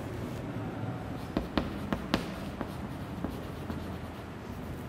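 Chalk scratching and tapping on a chalkboard as a word is written by hand, with a few sharper taps between about one and a half and two seconds in.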